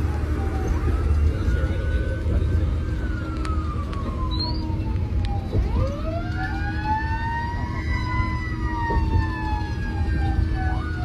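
Fire engine's wail siren heard from inside the cab, its pitch rising and falling slowly over several seconds: a rise near the start, a fall to its lowest about halfway, then a quick climb and a long slow fall. A steady low rumble from the engine and road runs underneath.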